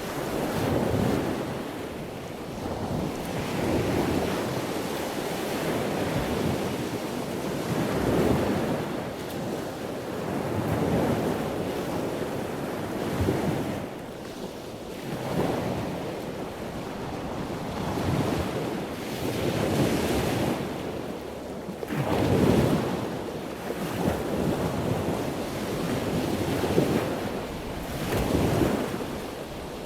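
Rushing noise of wind and water, swelling and fading every couple of seconds.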